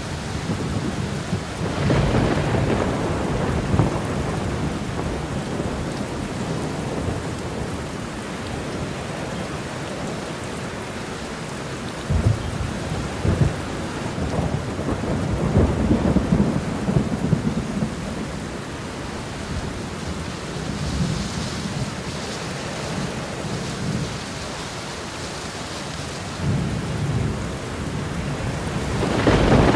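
Thunderstorm: steady heavy rain with thunder rumbling again and again, low rolls swelling about two seconds in, through the middle, and a louder clap building near the end.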